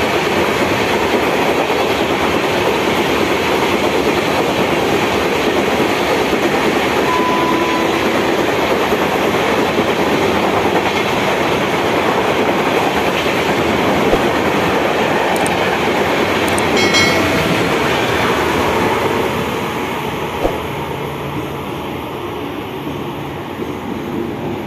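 Passenger coaches of an express train running through the platform at speed: a loud, steady rush and clatter of wheels on rail. A brief high squeal about 17 seconds in, and the noise eases off at about 19 seconds as the last coaches pass.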